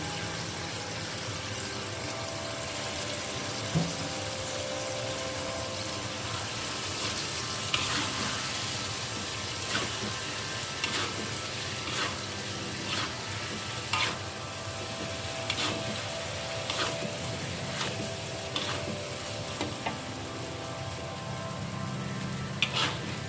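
Food sizzling as it fries in a hot pan and is stirred, with a cooking utensil clicking against the pan about once a second from about a third of the way in.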